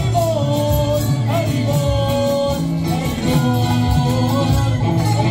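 Devotional kirtan: a voice sings a drawn-out chant melody over a steady rhythm of hand drums and jingling hand cymbals.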